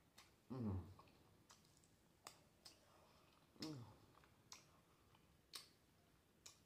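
Soft wet mouth clicks of a person chewing and smacking on a mouthful of black bean noodles, with two short low hums, about half a second in and again around three and a half seconds.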